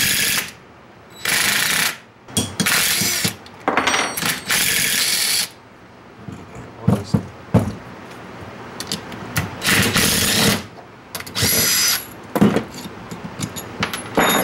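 Cordless impact driver backing out the bolts of a bracket on a Ford FS10 AC compressor, in short bursts: five in the first five seconds, then two more about ten and eleven and a half seconds in. Light metal clinks of loosened bolts come between.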